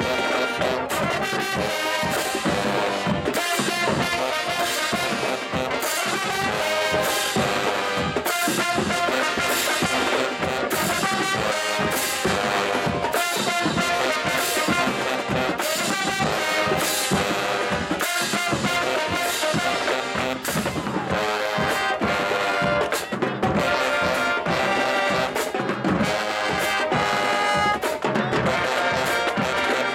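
HBCU marching band playing: trombones and trumpets carry a tune over drums, with frequent sharp hits throughout.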